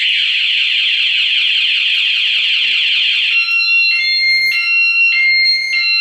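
Taiwanese-made aftermarket motorcycle anti-theft alarm siren sounding on a Yamaha Fino fuel-injected scooter, set off by turning the ignition with a non-original 'ghost' key. It gives a loud, rapidly repeating whooping sweep, and about three seconds in it switches to a pattern of alternating held tones.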